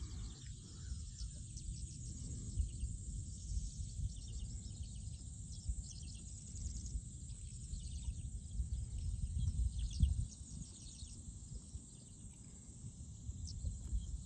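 Outdoor ambience: a low, uneven rumble of wind on the microphone, with quick high-pitched chirps of insects and birds above it.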